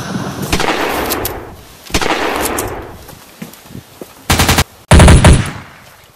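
Gunfire sound effects: two single shots, each ringing out for about a second, then two rapid automatic bursts a little over four seconds in, the second burst the loudest.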